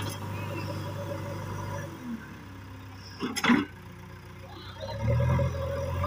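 JCB backhoe loader's diesel engine running, easing to a quieter idle about two seconds in and picking up again near the end. A short loud sound cuts in about three and a half seconds in.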